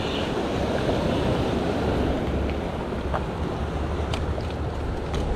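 Surf washing and breaking over rocks, with wind rumbling on the microphone. A few faint ticks come in the second half.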